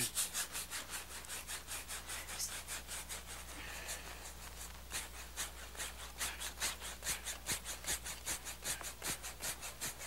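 A large bristle brush scrubbing oil paint into a stretched canvas in quick, even back-and-forth strokes, about four or five a second.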